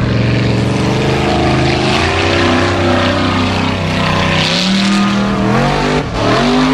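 Formula Offroad buggy's engine revving hard under load as the car climbs a steep dirt slope, its pitch rising in steps, dropping briefly about six seconds in, then climbing again.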